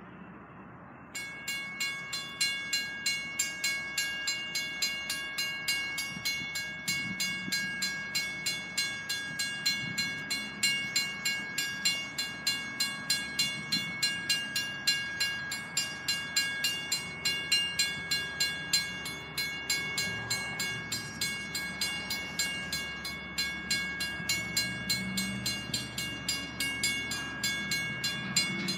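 Railroad grade-crossing warning bell starts ringing about a second in, an even, rapid ding repeated two to three times a second, warning of an approaching train. A faint low rumble builds underneath near the end.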